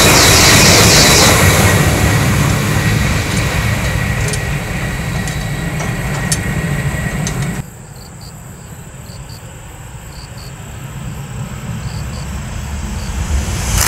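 An E5-series Shinkansen passes close at speed with a loud rush and rumble and rapid wheel clicks, fading as it goes away. The sound cuts off abruptly about halfway through and goes much quieter. Then the rising rush of a second high-speed Shinkansen grows louder as it approaches.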